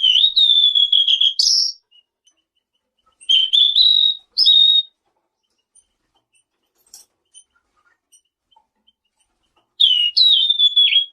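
A selendang biru (tledekan biru) songbird singing loud, clear whistled phrases in three bursts, each a second or two long, with a few seconds of quiet between them. The phrases are mostly held, level notes with quick upward flicks.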